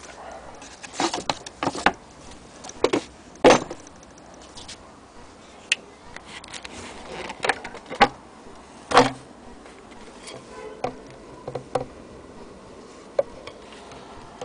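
Irregular knocks, clicks and light clatter from an antique Singer 15K80 hand-crank sewing machine and its wooden base being handled and tilted. The loudest knocks come about three and a half seconds and nine seconds in.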